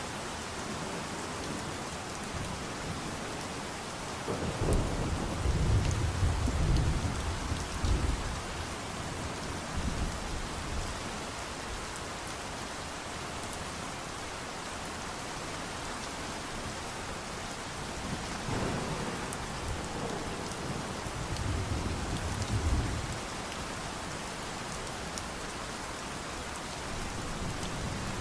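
Steady rain falling with an even hiss. Two rolls of thunder rumble over it, one starting about five seconds in and lasting a few seconds, and another from about nineteen to twenty-three seconds.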